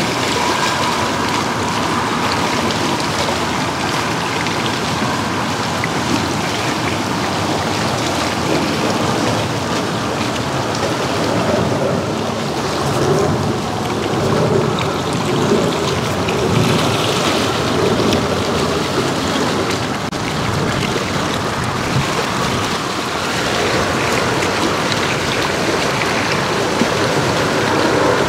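A steady rushing noise of strong wind and choppy water splashing, with small gusts now and then.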